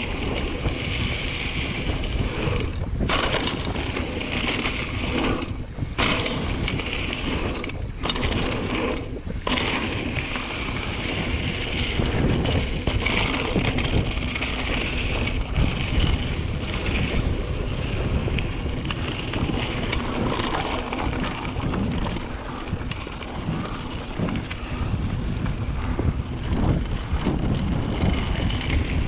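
Mountain bike descending a dry dirt trail, heard through a GoPro Hero 7 Black's built-in microphone: steady wind rush on the microphone mixed with the rumble of the tyres over the dirt. There are a few brief dips in the first ten seconds or so.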